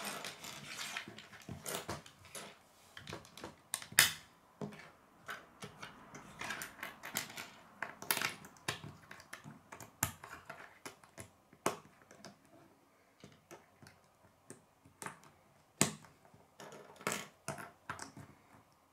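K'nex plastic connectors and rods clicking and rattling as they are handled and snapped together, in irregular clicks with a few sharper snaps, the loudest about four seconds in.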